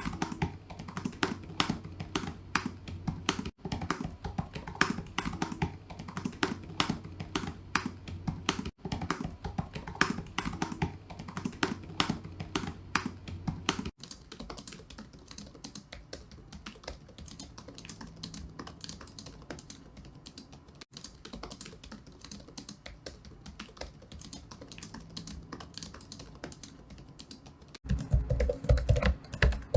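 Typing on computer keyboards: rapid key clicks and clatter in a series of separate clips that change abruptly every few seconds, each with a different keyboard's sound.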